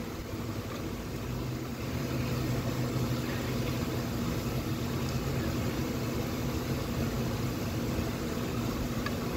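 Steady low mechanical hum with an even drone that settles in about a second and a half in.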